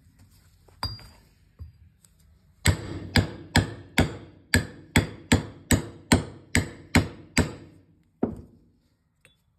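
Hammer blows on a metal mandrel, driving rotary lip seals home into a tractor PTO nose casting. A single knock about a second in, then a run of about a dozen evenly paced blows, two to three a second, and one last blow near the end.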